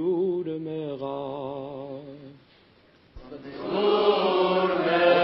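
Armenian liturgical chant: a solo voice with a wide vibrato over a held low drone, fading out about two and a half seconds in. After a brief hush, a choir enters and swells.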